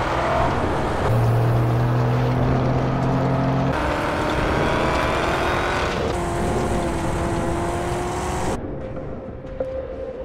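Vehicle engine sound effects running steadily as the vehicles drive, the engine note switching abruptly to a different one several times, and dropping to a fainter rumble near the end.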